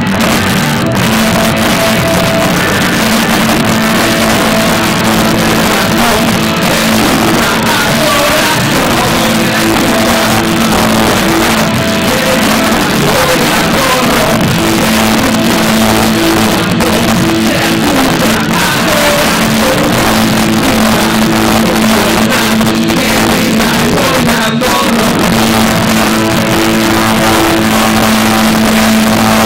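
Rock band playing loud live music, with guitar and singing.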